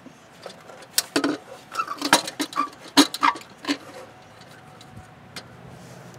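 Parts being handled during the teardown of a truck engine's air filter housing and hoses: a quick run of sharp clicks and knocks, some briefly ringing, starting about a second in and lasting about three seconds, then a couple of faint ticks.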